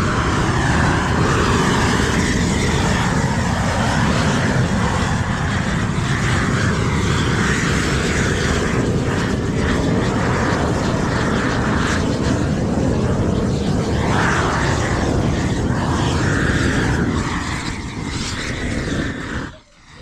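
Gas torch burning with a loud, steady rush, the kind used to melt Izogam bitumen roofing membrane onto a roof. It cuts off suddenly near the end.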